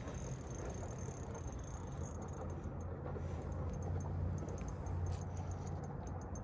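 A steady low mechanical hum, with faint light clicks and rattles a few seconds in.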